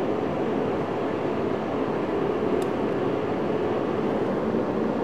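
Steady mechanical drone of running machinery, even in level throughout, with one faint light click about two and a half seconds in.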